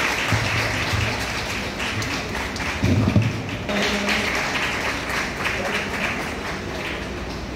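Audience applauding, a dense clatter of many hands, with a low thud about three seconds in.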